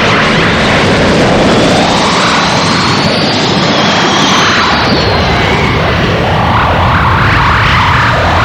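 Kamehameha energy-beam sound effect: a loud, continuous rushing roar, with a thin high whine that rises slowly across the middle of the blast.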